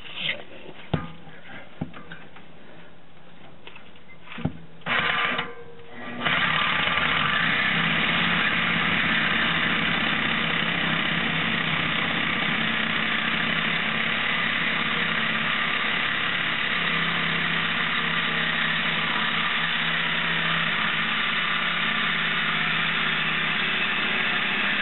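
Handheld power tool cutting into a car's steel exhaust pipe: a couple of short starts a little before 5 s, then it runs steadily at full speed from about 6 s on.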